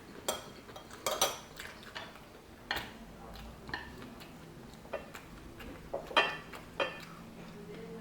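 Eating utensils clinking and knocking against dishes at a meal table, a scattered series of sharp clinks, with a faint steady hum underneath.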